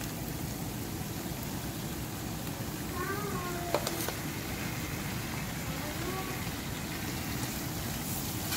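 Tomatoes and onion masala frying in oil in a pan, a steady sizzle, as the freshly added diced tomatoes are stirred with a wooden spoon. A couple of sharp knocks come about four seconds in.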